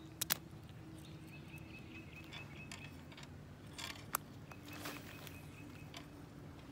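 Spinning rod and reel being handled: two sharp clicks just after the start and a few fainter clicks around four to five seconds in, over a quiet outdoor background.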